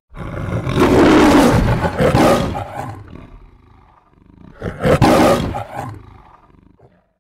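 Lion roaring twice, the studio-logo roar of the MGM film intro: a long first roar, then a shorter second one about four and a half seconds in.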